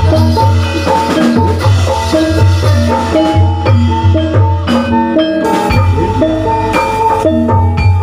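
Javanese gamelan music for a gedruk dance: metallophones strike a repeating pattern of notes over steady drum beats. A deep low boom sets in a little before six seconds in.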